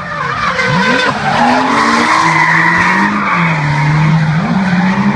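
Drift car sliding sideways: its engine revs up and down in pitch over loud, continuous tyre squeal.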